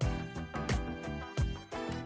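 Background music with a steady beat: drum hits over sustained pitched instrument notes.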